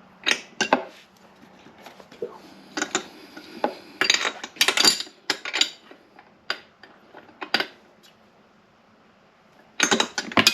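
Metal hand tools clinking and clanking, picked up and set down in short irregular clusters, with a loud clatter near the end.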